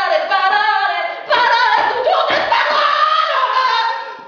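A woman's high voice singing loudly in long, sliding notes, unaccompanied, breaking off briefly just after a second in.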